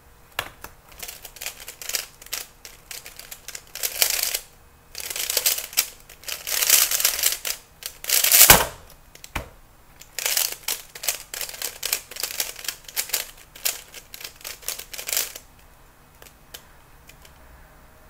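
Plastic 3x3 Rubik's cube being turned at speed in a speedsolve, a rapid clicking and clattering of layers in quick bursts. About eight and a half seconds in, a loud sharp knock ends the solve, followed by another run of fast turning.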